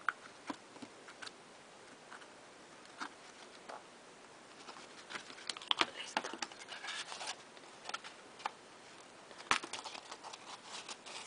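Painted paper sheets being handled on a tabletop: rustling and scattered light taps and clicks, with small pricks from an awl punching holes along the paper's fold near the start. A sharper tap comes near the end as a second sheet is picked up.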